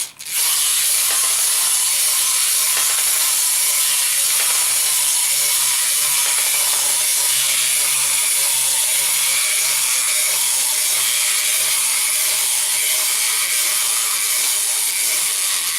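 Clockwork mechanism of a plastic wind-up toy chicken running, a steady ratcheting whir that starts about half a second in and holds even.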